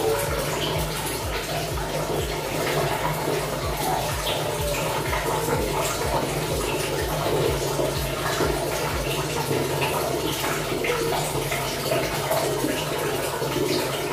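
Water splashing and sloshing steadily while a Shih Tzu puppy is bathed and scrubbed by hand.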